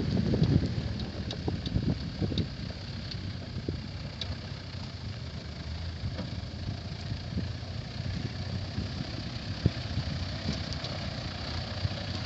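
Mitsubishi Pajero 4x4's engine running steadily at low revs as it crawls over rocks, with wind buffeting the microphone in the first couple of seconds and a few small clicks from the stony ground.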